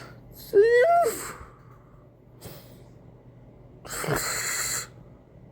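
A short wordless vocal exclamation that rises in pitch, then about three seconds later a loud breathy hiss lasting under a second, like a sharp exhale or sneeze.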